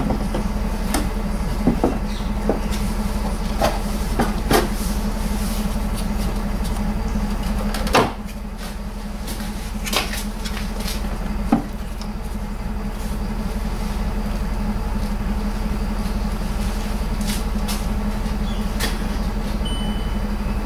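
Plastic rear light cluster knocking and clicking in a scatter of sharp taps as it is pushed and slid onto its mounting pins on the car body. The loudest knock comes about eight seconds in. A steady low hum runs underneath.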